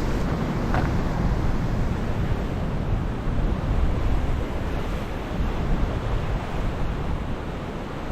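Ocean surf washing on a rocky shore, with wind buffeting the microphone in a steady low rumble.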